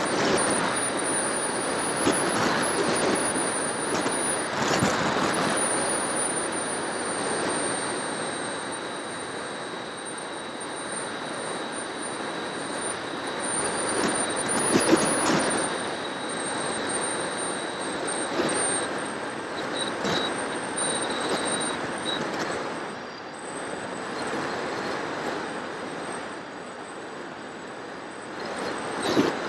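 Wind and propeller noise picked up by an FPV aircraft's onboard camera in flight: an uneven rushing that swells and fades, under a thin, steady high whine.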